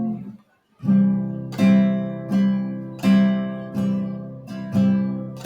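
Acoustic guitar strumming chords in a steady rhythm, about one stroke every two-thirds of a second, each chord ringing and fading; this is the instrumental lead-in to a worship song.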